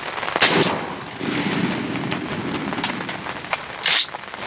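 Rain pouring steadily, with a few heavy drops splatting loudly close to the microphone, one just under half a second in and another near the end.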